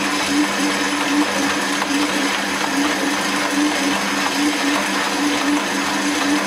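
Stand mixer motor running steadily as its dough hook kneads sticky yeast dough in a metal bowl. The hum has an even, rhythmic pulse.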